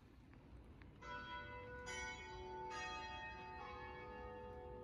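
Church bells ringing: four bell strokes of different pitches, about one a second, starting about a second in, each left ringing on over the others.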